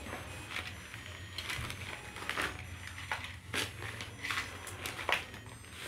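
Plastic toy train pushed by hand along its plastic track: scattered light clicks and knocks, about one a second, over a steady low hum.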